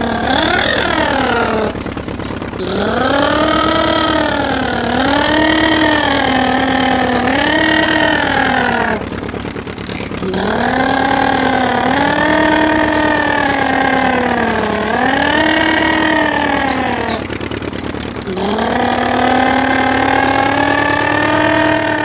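An engine-like revving sound, its pitch rising and falling in three long stretches with short breaks, laid over play with push-along plastic toy trucks.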